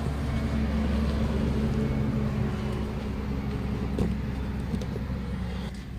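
A machine running with a steady low hum that cuts off abruptly near the end, with one short knock about four seconds in.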